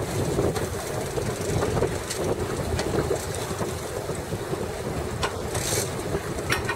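Steady rumble of a fishing boat's engine, mixed with wind and sea noise, with a few sharp clicks and a short hiss a little before the end.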